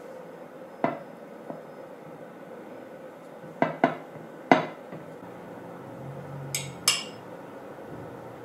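Scattered clinks and taps of metal kitchen utensils (a palette knife and a spoon) against glass dishes, about seven short knocks, the last two higher and brighter, over a faint steady hum.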